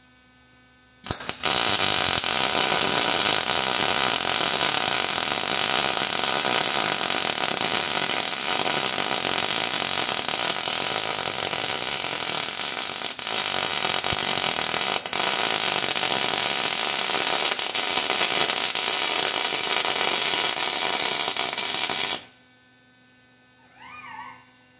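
Electric arc welding: the welding arc crackles steadily for about twenty seconds as a beginner runs a bead, starting about a second in and cutting off sharply when the arc is broken.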